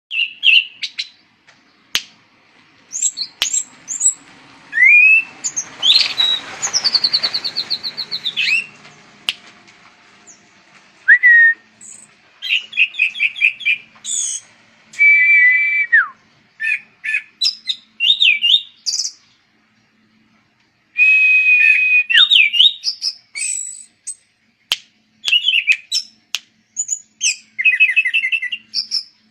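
Anis cendana (orange-banded thrush) singing: a varied song of short phrases of clear whistles, rapid repeated notes, trills and chirps, broken by brief pauses.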